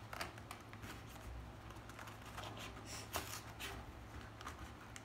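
Fingers handling and picking at a small cardboard toy box to open it: faint scratching and rustling with scattered light clicks and taps, a few sharper ones about three seconds in.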